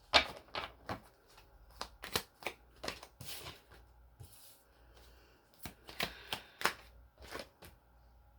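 Tarot cards being shuffled and handled by hand: a string of short, sharp card snaps and slaps, busiest in the first few seconds and again about six to seven seconds in.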